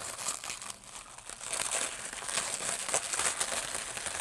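Packaging crinkling and rustling continuously as products are rummaged out of a shipping box, full of small crackles.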